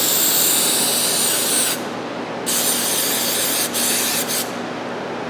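Aerosol can of mass air flow sensor cleaner spraying in two long hissing bursts, about two seconds each, onto the dirty sensing elements of a MAF sensor, over a steady low hum.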